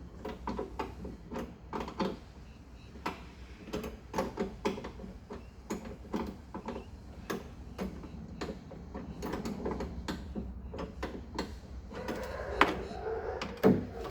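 Irregular clicks, taps and knocks of hands and tools working on an HQ Holden's steel door, with two louder knocks near the end.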